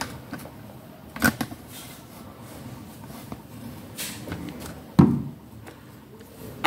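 Handling noise from OO-scale model railway tank wagons being moved and picked up: a few light clicks and knocks, the loudest a dull knock about five seconds in.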